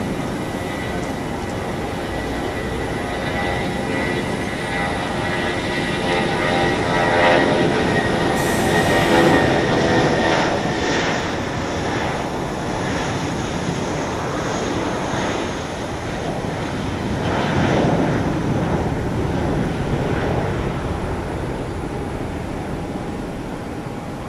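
Airbus A320's twin IAE V2500 turbofans at takeoff thrust during the takeoff roll and climb-out: a heavy, steady jet rush with a faint whine early on. It swells to its loudest about a third of the way in and again about three-quarters through, then eases slightly as the aircraft climbs away.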